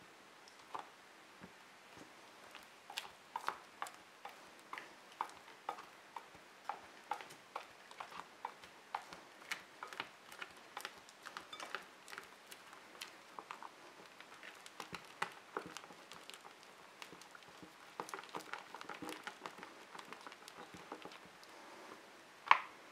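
A spatula stirring and folding a thick, foamy slime mixture in a glass bowl: irregular soft squelches and clicks, a few a second, with one louder knock near the end.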